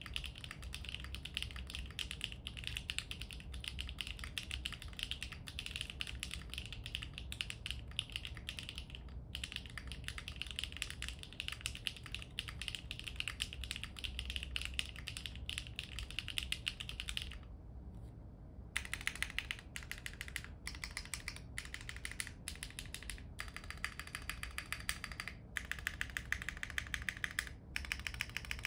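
Mechanical keyboard with HMX x GEON Raptor linear switches and doubleshot ABS keycaps, typed on continuously with dense, fast clacking. After a short pause a little past halfway, single keys are pressed one at a time with gaps between them: the long keys tested on a board built without stabilizers.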